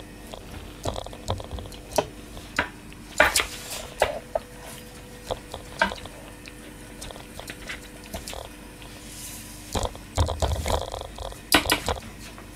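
Scattered knocks, clicks and rustles of kitchen items being handled, over a faint steady hum.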